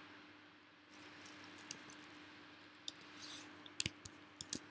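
Computer keyboard keys being typed in scattered clicks, soft at first and sharper and louder near the end, over a faint steady hum.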